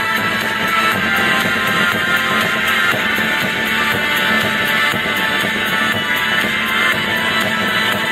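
Guitar-led rock music played through a bare American HiFi AHF-1041 two-way coaxial car speaker with no enclosure. It plays loud and steady, with very little deep bass coming through.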